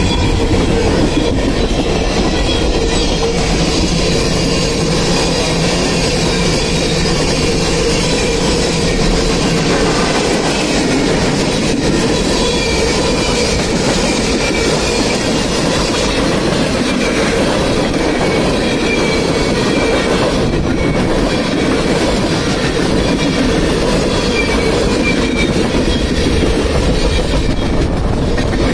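Freight train cars rolling past close by: a steady loud rumble of steel wheels on the rails, with faint high wheel squeals here and there.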